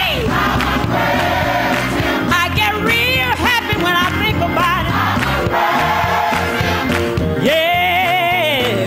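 Live gospel song: a woman singing lead with melismatic runs and heavy vibrato over a choir and accompanying band, holding one long wavering note near the end.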